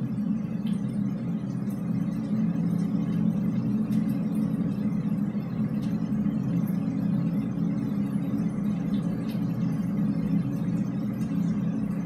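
Steady low rumble of background noise in a drainpipe, picked up by a recorder lowered down the pipe; no air-horn blast stands out from it.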